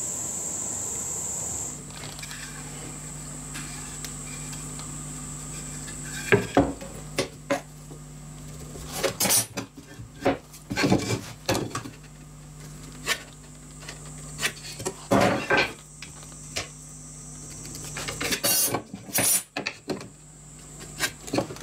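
Scattered light clicks, taps and clatter of a steel rule, combination square and pencil being picked up, set down and slid on a wooden workbench while timber is marked out, over a steady low hum.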